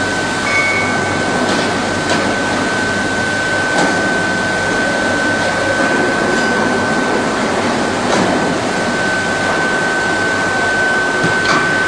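Induction melting furnace running: a steady high-pitched whine over a constant industrial din, with a few sharp clanks scattered through.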